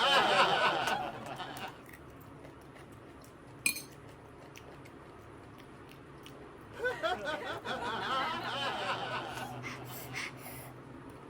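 A woman giggling in two bouts, one at the start and one about seven seconds in, with a single sharp click between them.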